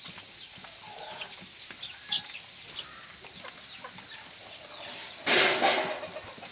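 Hundreds of farmed crickets chirping together in a dense, steady, high-pitched chorus. About five seconds in, a brief burst of noise rises over it for half a second.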